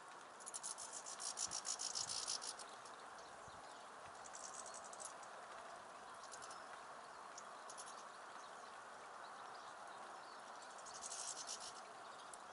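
European goldfinches giving bursts of high, rapid twittering calls, the longest just after the start and another near the end, over a steady background hiss.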